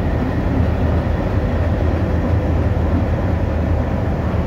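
Steady low rumble from a passenger train at a railway platform, with the general noise of the station.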